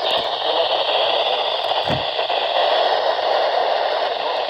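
Steady static hiss from a NOAA Weather Radio receiver with no voice or alert tone on the channel.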